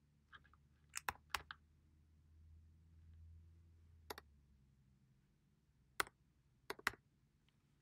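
Keystrokes on a computer keyboard: about ten faint, sharp key clicks in small irregular clusters as a username is typed in.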